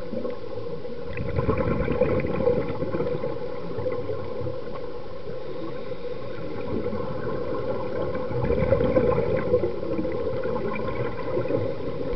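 Muffled underwater gurgling of scuba divers' exhaled bubbles, with louder bursts of bubbling about a second in and again about eight seconds in.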